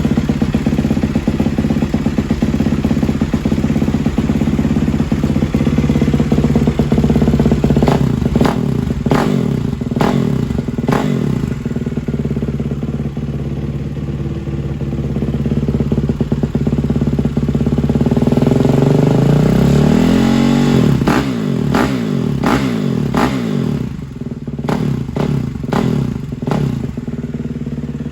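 2020 Kawasaki KX450's single-cylinder four-stroke engine running warm through a Pro Circuit Ti-6 titanium header and silencer. It idles steadily, is blipped sharply a few times about a third of the way in, and is revved up and down several times in the second half.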